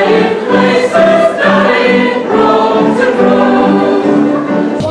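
A choir singing held notes in several voices.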